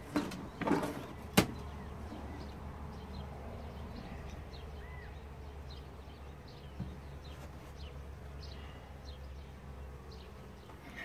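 A wooden beehive cover is knocked and pried loose, with a sharp crack about a second and a half in. Then honeybees buzz around the opened hive, some flying close past now and then.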